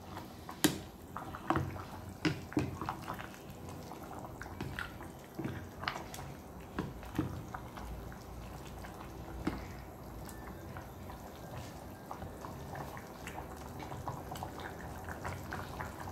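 Noodle soup being stirred in a cooking pot: irregular clinks and knocks of a utensil against the pot, with wet dripping and sloshing of broth.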